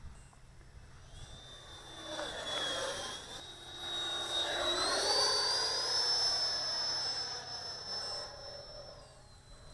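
Electric ducted fan of a 70 mm, eleven-blade RC L-39 jet flying past: a high whine over a rushing sound that swells to its loudest about five to seven seconds in and fades near the end. The whine steps up in pitch about four and a half seconds in and drops back about nine seconds in.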